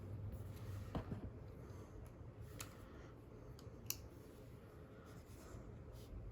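Faint handling of makeup and its containers: a few light clicks and taps, about three of them, with soft scratchy rubbing over a low steady hum.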